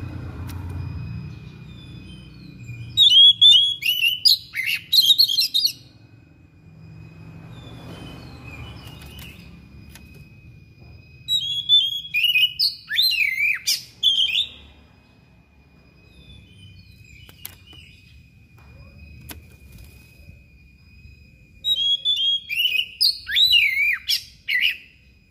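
Oriental magpie-robin singing in three loud phrases a few seconds apart, each a rapid run of sharp, sweeping whistles and trills, with a faint steady high tone behind.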